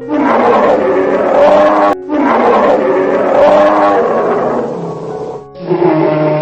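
A large animal calling: loud, drawn-out calls that bend in pitch, one ending about two seconds in, a longer one after it, and another starting near the end.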